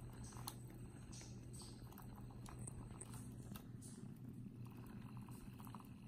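Faint soft taps and rustles of a kitten batting at a toy on carpet, over a steady low hum.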